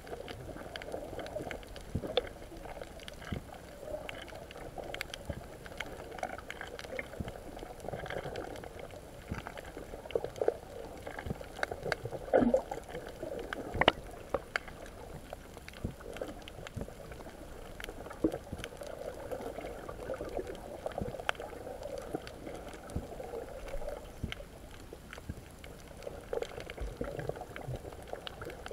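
Muffled underwater water noise, gurgling and sloshing, heard from beneath the surface, with many scattered small clicks and crackles and a couple of louder knocks about halfway through.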